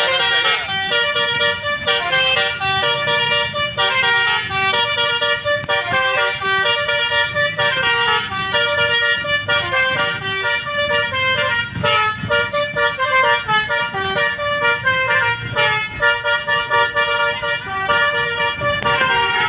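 Basuri musical air horn on a bus playing a fast telolet melody, a quick run of short stepping notes that goes on without a break.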